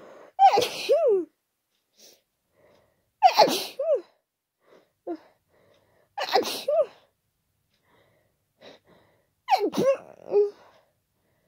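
A person with a cold sneezing four times in a row, about three seconds apart: wet, forceful, unstifled sneezes, with short quick breaths between them.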